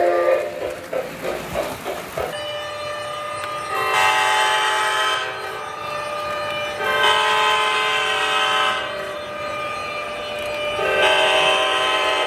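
A model steam locomotive's sound system chuffing rhythmically for about two seconds, then an O-gauge NJ Transit model electric locomotive's sound-system horn blowing three long chord blasts a few seconds apart as it approaches.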